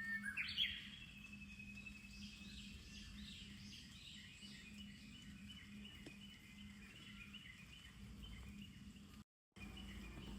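Japanese bush warbler (uguisu) singing: a held whistle that breaks into a quick rising flourish right at the start, then a long run of rapid, repeated chirping notes lasting several seconds. This is a late-season "old" warbler still singing in summer.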